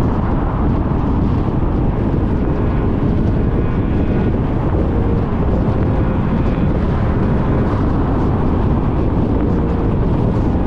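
Car driving along: a steady rumble of tyre and wind noise with no rise or fall.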